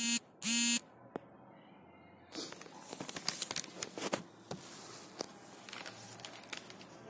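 Two short beeps at the very start, then rustling, crinkling and light clicks from about two seconds in as a paper surgical face mask is adjusted by hand.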